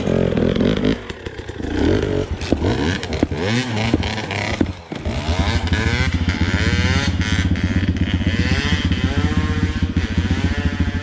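Pit Gang 140XD pitbike's single-cylinder four-stroke engine revving up and down while riding through deep snow. Its level drops briefly about five seconds in, then it runs steadily with the revs rising and falling.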